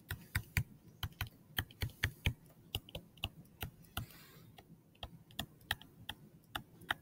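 Plastic stylus tapping and clicking on a tablet screen during handwriting: a string of light, irregular clicks, a few a second.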